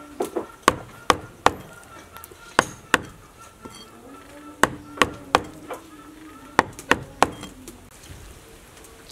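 Knife chopping raw chicken ovaries and oviducts on a thick wooden chopping block: sharp knocks in uneven groups of two or three with short pauses between, stopping near the end.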